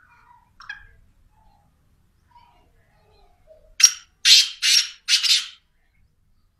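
Caged black francolin (kala teetar) calling: a little past halfway, four loud, harsh notes in quick succession, all over in under two seconds. Faint soft chirps come before them.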